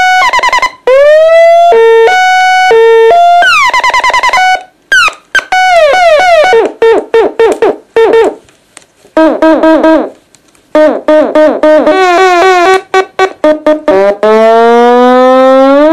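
Homemade electronic noise maker in a tin, played through a small guitar amp: buzzy beeping tones that slide in pitch, hop back and forth between two notes, then break into rapid stuttering bursts. Near the end one tone sweeps steadily upward. These are the strange sounds the device makes with its three modifier buttons held in combination.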